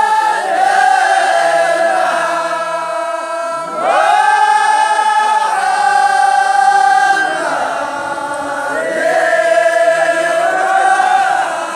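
A large group of men chanting in unison, holding long notes in phrases that break and start afresh about four seconds in and again around eight seconds, with no drums.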